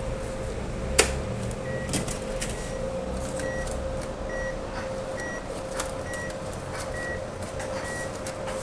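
Cash-deposit ATM beeping a short high tone about once a second over a steady machine hum, with a sharp click about a second in.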